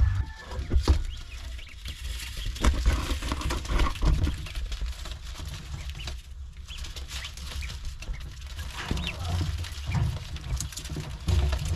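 Farmyard poultry: occasional soft clucks over many scattered small taps and rustles, with an uneven low rumble underneath.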